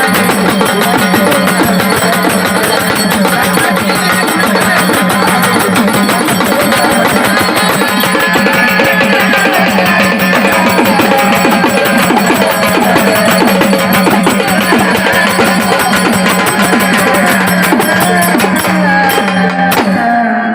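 Instrumental interlude of a Marathi gavlan folk song: fast, dense drumming over a steady held drone and a wavering melody line. It fades out at the very end.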